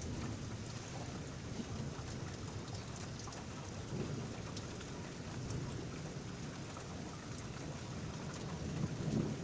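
Steady rain falling during a thunderstorm, with thunder rumbling low beneath it, swelling about four seconds in and again near the end.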